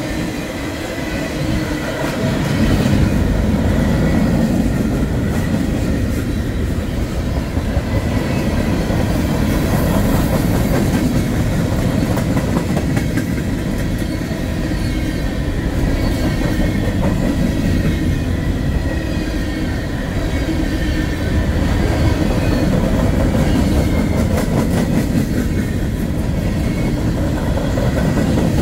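Freight cars of a long mixed freight train rolling past close by: a steady, loud rumble of steel wheels on rail, with scattered clicks from the wheels that thicken near the end.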